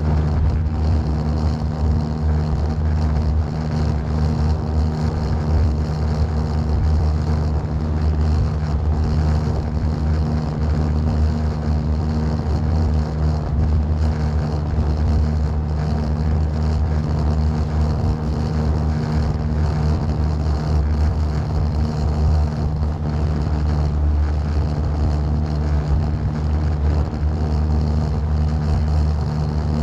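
A small fishing boat's engine running steadily at cruising speed, with an even low hum.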